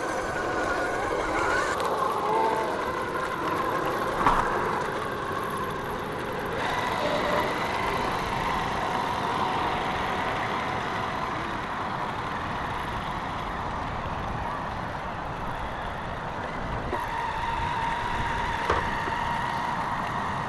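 Electric motor of an RC rock crawler whining as it drives, the pitch wavering a little with throttle, over a rough noisy background. Two sharp knocks, one about four seconds in and one near the end.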